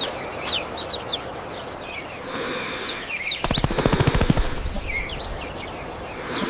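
Small birds chirping over a steady outdoor background, with a rapid rattle of about a second just past the middle.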